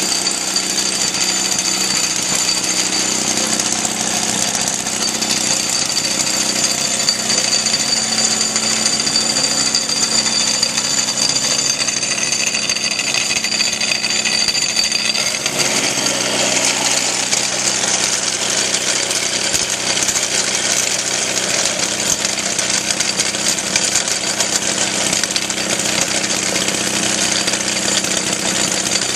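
A 1939 Maytag Twin, an air-cooled two-cylinder two-stroke engine, running steadily with a rapid, even firing chatter while it drives a grain mill. About halfway through, the tone of the running changes.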